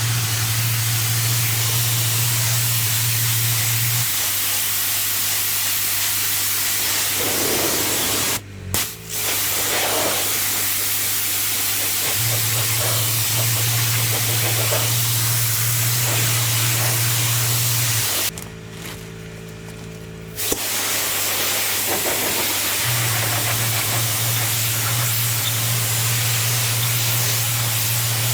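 Pressure washer jetting water onto block paving: a steady, loud hiss over a low machine hum. The spray cuts out briefly about eight seconds in, and again for about two seconds near the middle, before resuming.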